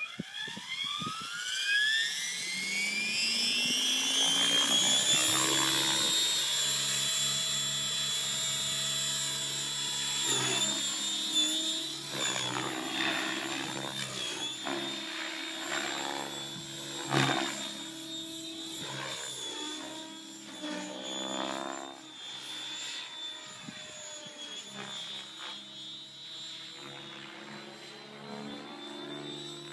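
Mikado Logo 600 electric RC helicopter, with Spinblades 610 main blades and a 560KV brushless motor, spooling up with a whine that rises over the first five seconds to a steady pitch. It then flies, the rotor swish and motor whine swelling and falling again and again as it manoeuvres and passes, and growing quieter as it climbs away.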